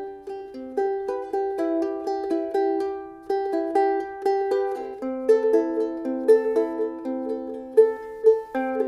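Soprano ukulele being finger-picked: a melody of plucked single notes and chords, each note ringing out and fading. About halfway through, a bright note is picked again and again over a held lower note.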